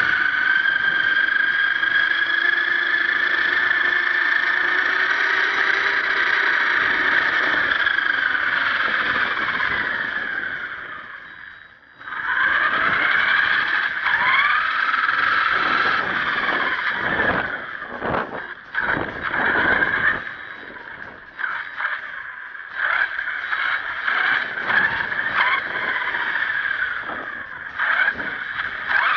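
1/10-scale HSP RC monster truck's motor and gears whining, the pitch gliding up and down with the throttle. The whine fades out around eleven seconds in, then comes back and is cut on and off in quick bursts through the second half.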